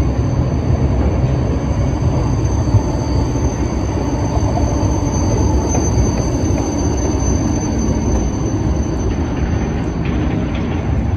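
BVG GT6 low-floor tram rolling past close by: a steady, loud rumble of wheels on rail with a thin, steady high whine on top.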